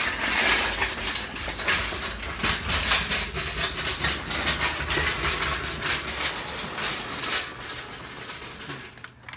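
Steel lifting chain on an engine hoist rattling and clicking steadily as the hung engine is worked, easing off near the end.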